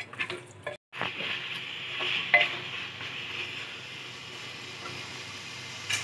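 Mutton pieces sizzling in oil and masala in a pressure cooker pot, with a spatula stirring and scraping against the metal. The sound drops out for a moment just under a second in, then the sizzling runs on steadily with an occasional scrape.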